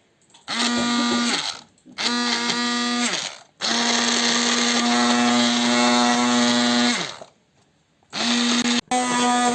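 Electric hand mixer running in repeated on-off bursts with a steady motor whine, beating a cake batter to break up lumps of tomato. It makes two short runs, then a longer run of about three seconds, stops, and starts again near the end.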